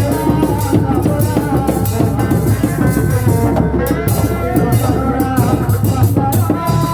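Live reak kuda lumping ensemble music: dense drumming and rattling percussion under a wavering melody line, playing continuously.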